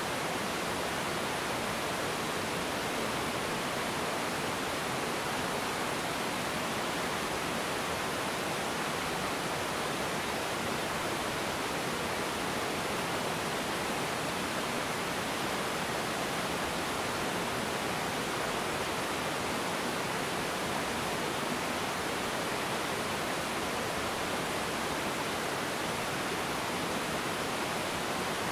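Steady, even rush of a small river waterfall, water pouring over a low ledge of rocks and churning into the pool below.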